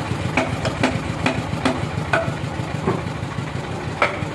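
An engine idling steadily, with a run of short, sharp knocks about two a second over it that pause for a moment mid-way and then resume.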